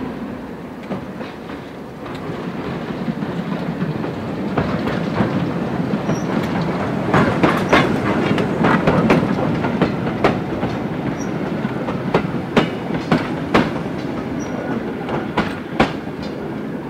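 Train of a Class 08 and a Class 03 diesel shunter with a Class 207 DEMU running past, with a steady low rumble. The wheels give many sharp clicks over rail joints and points, thickest in the middle and easing off near the end.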